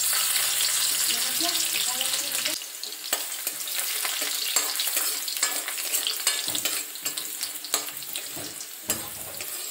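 Garlic sizzling loudly as it drops into hot oil in a wok, settling after about two and a half seconds into a steady frying hiss. The garlic is then stirred, with many short scrapes and taps of the utensil against the pan.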